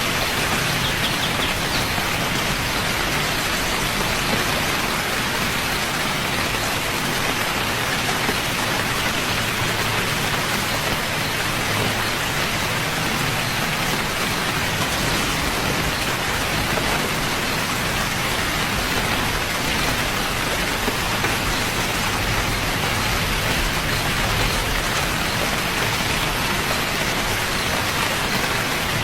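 Steady rain falling, an even hiss of many drops without breaks or thunderclaps.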